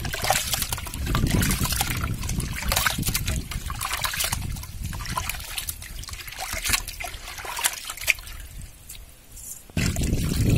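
Raw chicken pieces being washed by hand in a pot of water: irregular sloshing, splashing and wet squelching as the meat is stirred and squeezed. A louder low rumble comes in near the end.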